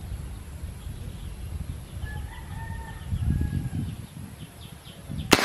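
A rooster crows faintly about two seconds in, over a low background rumble. Near the end comes one sharp crack of a PCP air rifle fired with its silencer removed.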